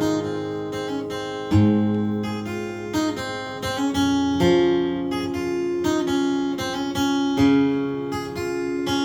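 Acoustic guitar played alone, chords ringing out with a fresh chord struck about every three seconds and single notes picked between them.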